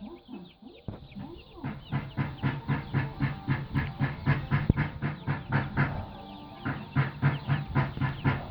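Farm fowl calling in a rapid, even series of short calls, about four to five a second, with a brief pause about two-thirds of the way through.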